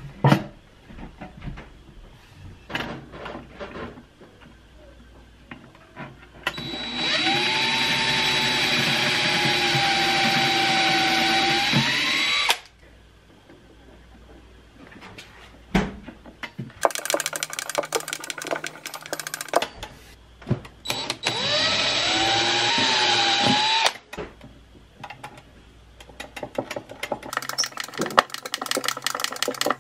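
An electric power tool's motor runs in two bursts, the first about six seconds long and the second about three seconds. Each time the whine holds steady, then rises briefly and cuts off suddenly. In between and afterwards come light clicks and taps of hand work on small hinge hardware with a screwdriver.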